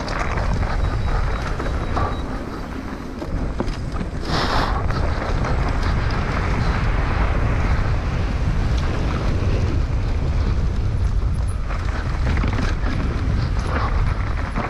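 Wind rushing over the microphone of a mountain bike ridden at race speed down an enduro stage, over a steady low rumble from the ride, with a brief louder hiss about four and a half seconds in.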